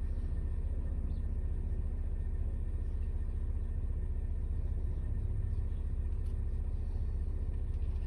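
A car engine idling, heard from inside the cabin as a steady low rumble with a faint hum.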